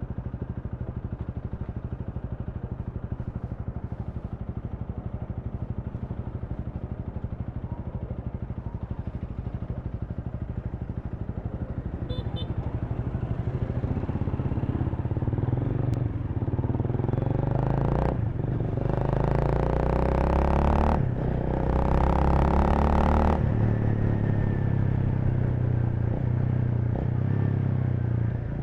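Honda Rebel 300's single-cylinder engine running steadily at low revs, then accelerating about halfway through, its note climbing in several rising runs broken by brief dips like gear changes, before settling back to a steady cruise.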